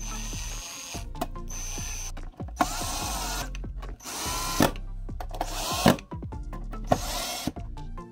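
Cordless drill/driver running screws into the cover of a Honda P28 ECU's metal case in several short runs, its motor whine rising and falling as each screw draws down.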